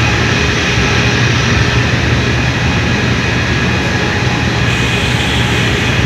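Loud, steady drone of running power-plant machinery, with a strong low hum and several steady whining tones above it.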